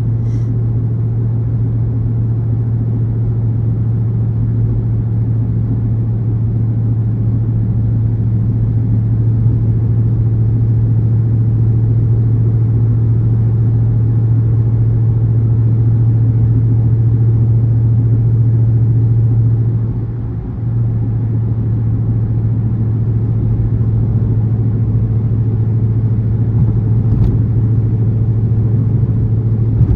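Dodge Charger R/T's 5.7-litre HEMI V8 with a catless, gutted exhaust, droning steadily at highway cruise over tyre and road noise. About 20 seconds in it briefly drops off, then settles back.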